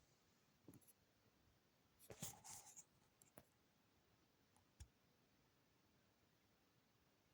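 A few faint clicks and handling rattles: a short rattling cluster about two seconds in, a single click, and a low knock near the middle, in otherwise near silence.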